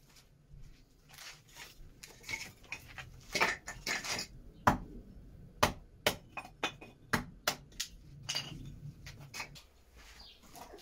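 A hatchet splitting thin kindling on a wooden chopping block: a dozen or so sharp chops at an uneven pace, mostly half a second to a second apart.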